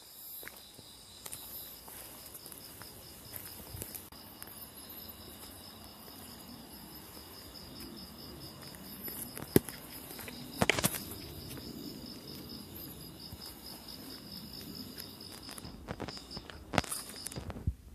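Night insects chirping in a steady, high, finely pulsing chorus. Sharp knocks and rustling break through it, the loudest about halfway through, a cluster just after, and more near the end.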